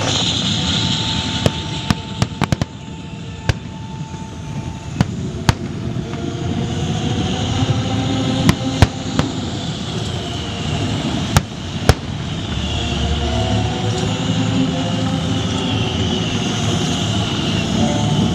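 Fireworks going off in sharp, irregular bangs, a quick cluster of them about two seconds in and more scattered through, over a continuous background rumble.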